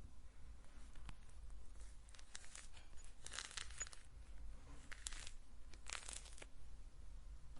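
Orange peel being torn from the fruit by hand, in a few short crackling rips that come in separate bursts. The longest rips come about three and a half seconds and six seconds in.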